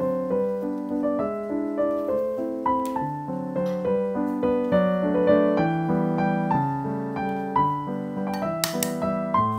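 Piano music playing a gentle melody of short, separate notes, with a brief crisp crackle of clicks about nine seconds in.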